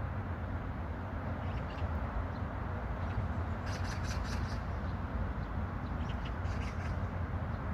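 Steady low outdoor hum with two short runs of high bird chirps, one about four seconds in and another a couple of seconds later.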